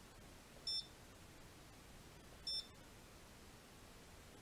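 Saeco Incanto S-Class Sirius espresso machine's control panel beeping as its touch button is pressed: two short high beeps, about two seconds apart, one for each step scrolled through the settings menu.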